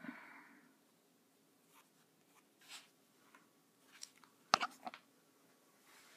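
Fine-tipped ink pen scratching briefly on paper, then a quick cluster of sharp clicks and knocks a little over halfway through, the loudest sound, as things are handled.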